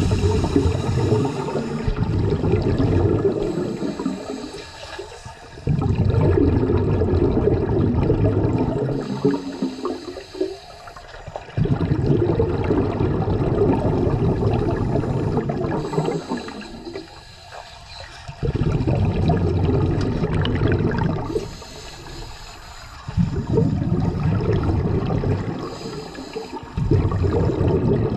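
Scuba diver breathing through a regulator, heard underwater: bubbling from the exhaust lasts three to four seconds on each exhalation, with a quieter gap of a second or two for each inhalation. About five breaths in a slow, even rhythm.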